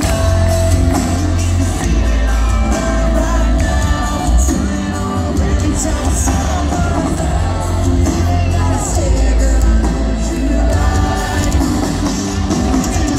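Live country band playing amplified music with a man singing lead over a heavy, steady bass, heard from among the audience, with shouts from the crowd.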